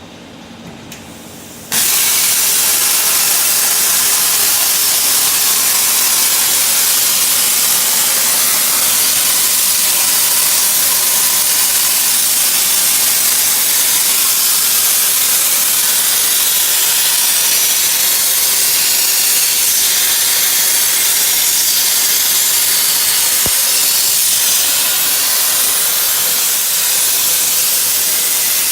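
CNC plasma torch cutting steel sheet: a loud, steady hiss that starts suddenly about two seconds in, after a faint low hum.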